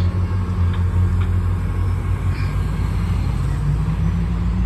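MARC MP36 diesel-electric locomotive's EMD 16-cylinder 645 prime mover running as the train approaches: a steady low drone that shifts slightly in pitch about halfway through.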